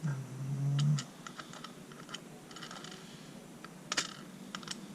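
Light, irregular clicks of small metal lock pins being sorted through and set down on a hard surface, the loudest about four seconds in. A short low hum of a man's voice in the first second.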